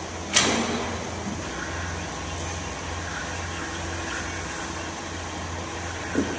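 Steady low machinery hum, with one sharp clack about half a second in and a smaller knock near the end.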